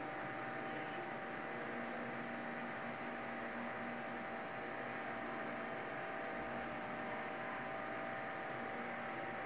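Daikin wall-mounted split air conditioner's indoor unit starting up, a steady hum with a faint airy hiss.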